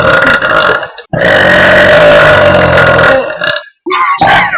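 A young woman belching loudly: one burp ends about a second in, then a long, steady belch of about two and a half seconds, with a brief shorter sound near the end.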